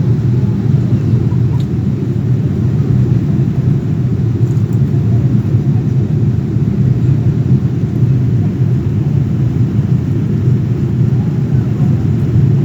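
Steady, loud, low rumble of a passenger airliner's engines and airflow, heard from inside the cabin in flight.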